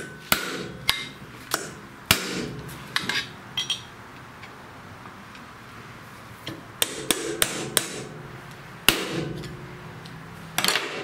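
Steel hammer pounding on the bolt at the end of a Briggs & Stratton single-cylinder engine's crankshaft, with a pry bar under the flywheel, to shock the flywheel loose: sharp metallic blows, several spaced ones first, then after a pause a quicker run of them about six to nine seconds in.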